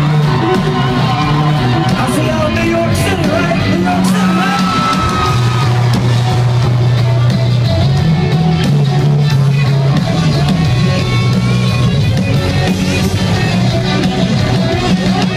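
Live country-rock band playing loud and steady on electric guitars and bass, with the crowd yelling and cheering, heard from among the audience.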